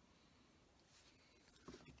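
Near silence: room tone, with a few faint knocks and rustles near the end as metal burner parts are handled.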